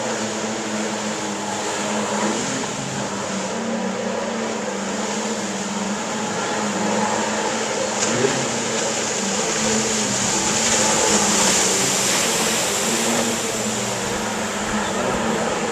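Jet ski engines running steadily with a drone and rushing hiss. The sound swells about two-thirds of the way through, as if one passes closer, then eases off.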